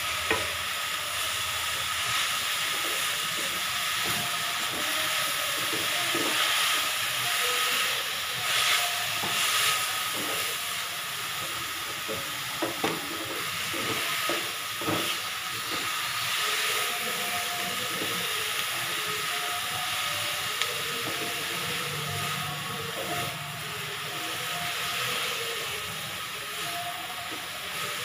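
Shredded vegetables sizzling with a steady hiss in an aluminium kadai while a wooden spatula stirs and tosses them, with scattered scrapes and knocks of the spatula against the pan.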